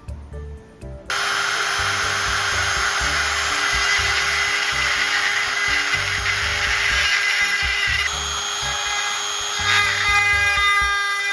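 An electric power tool switches on about a second in and runs steadily with a high whine. Its tone shifts twice near the end as it works. Background music with a low beat plays underneath.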